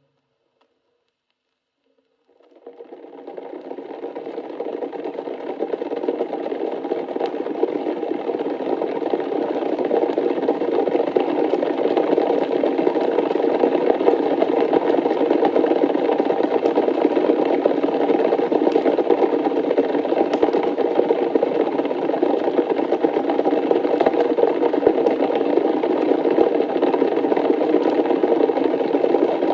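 A dense swarm of insects buzzing as a steady drone. It starts from silence about two seconds in and swells over several seconds to full loudness.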